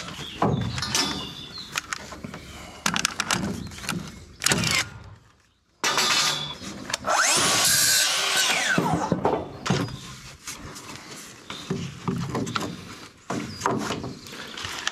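Plunge-cut track saw on a guide rail running and cutting through timber for about three and a half seconds, its whine rising and falling. Before and after it, knocks and clatter of timber battens being handled.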